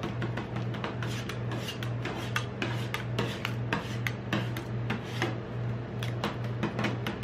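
Two metal spatulas chopping and scraping a soft, partly frozen ice cream mixture across a frozen steel ice-roll plate: a quick run of taps and scrapes, several a second, over a steady low hum.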